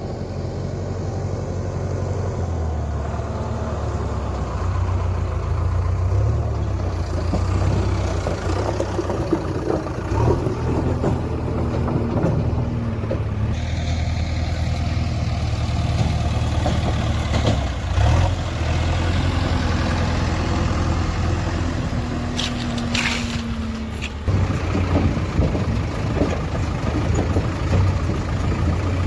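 JCB 3DX backhoe loader's diesel engine running as the machine drives, a steady low engine note. The sound changes abruptly about 13 and 24 seconds in, with a few brief hissing bursts shortly before the second change.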